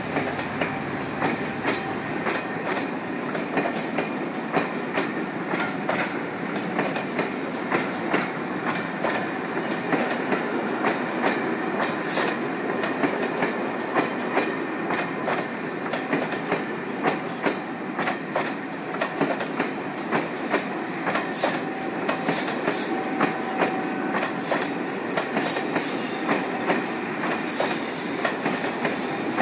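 Class 47-hauled passenger train rolling past, its wheels clicking over rail joints in a steady rhythm.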